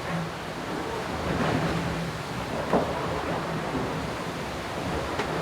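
Wind and rushing water aboard a racing yacht under sail, a steady noise with a low steady hum under it. A sharp, louder hit comes a little under three seconds in.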